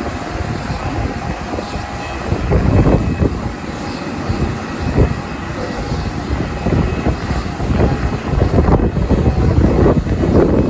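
Jet engines of an Airbus A320neo (CFM LEAP-1A turbofans) running, with a faint steady whine, under heavy wind buffeting on the microphone that comes and goes in gusts.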